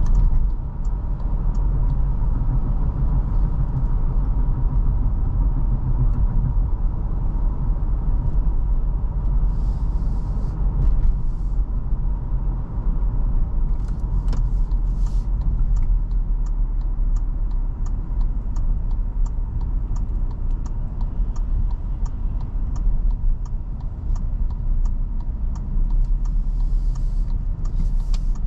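A 2021 Toyota Fortuner's naturally aspirated 2.7-litre petrol engine and its tyres making a steady low rumble while driving. A regular ticking, about two a second, runs through the middle stretch, with brief hissy swells near the middle and near the end.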